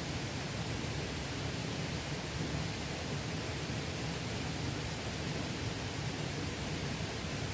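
Mountain valley stream flowing: a steady, unbroken rush of water.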